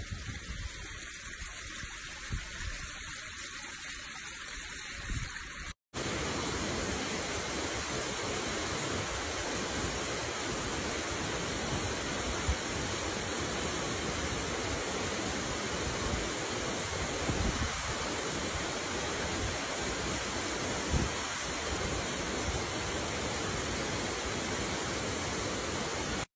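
Waterfall rushing: a steady, even noise of falling water that starts right after a brief dropout about six seconds in. Before the dropout there is a quieter, uneven outdoor noise.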